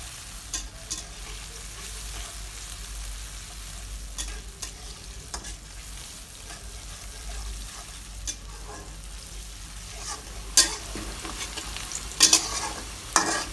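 Chopped onions sizzling in hot oil in a metal wok, stirred with a metal spatula that scrapes and clinks against the pan. The sharpest clanks come near the end.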